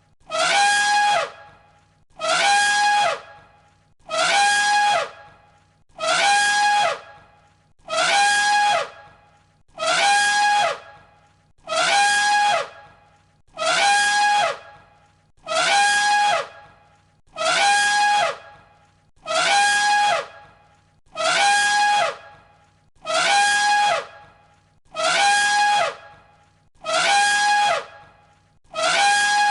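Elephant trumpet call played on a loop, the same blast repeating about every two seconds. Each call is loud, lasts about a second, and holds a steady high pitch before dropping at the end.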